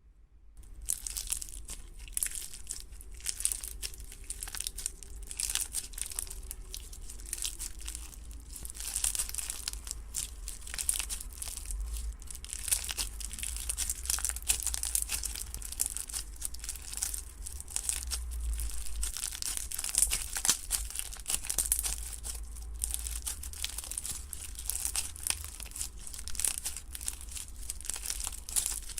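Slime being squeezed, pressed and pulled by hand, giving a continuous run of fine crackles and crinkly pops.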